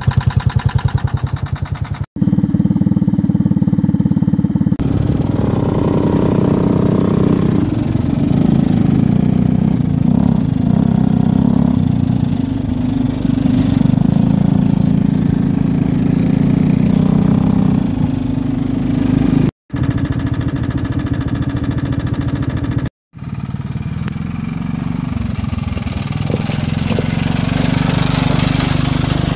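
Engines of a 1978 Kawasaki Sasquatch three-wheeler and an ATV running while riding on trails, the engine note rising and falling with the throttle. The sound breaks off abruptly three times between clips.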